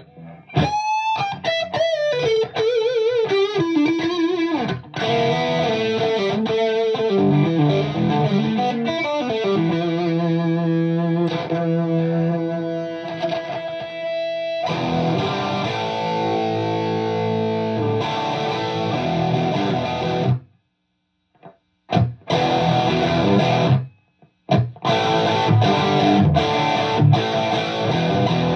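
Electric guitar played through a Tone King Royalist MKIII amp head with some drive, picked up by a phone's microphone. It opens with bent, wavering lead notes, moves to held notes and chords, then plays full chords that stop short about twenty seconds in. After a brief pause it plays short chord stabs with gaps between them.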